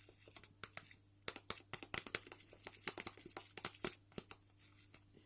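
Spoon stirring a sticky hand-soap-and-salt slime mixture in a pot: a fast, irregular crackle of wet clicks and squishes, densest in the middle and thinning out near the end.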